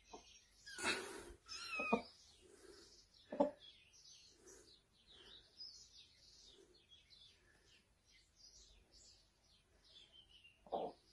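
Young kittens mewing: a loud, high mew that falls in pitch a second or two in and a shorter one at about three and a half seconds, with faint high chirps through the rest.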